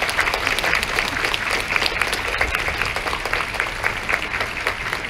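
A crowd applauding, many hands clapping steadily throughout.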